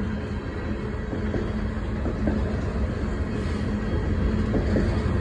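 Freight train cars rolling past, a steady rumble of wheels on the rails.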